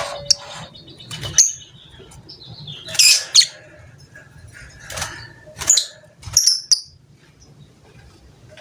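Lovebird giving a string of short, shrill chirps, about six sharp calls spaced roughly a second apart, ending about seven seconds in.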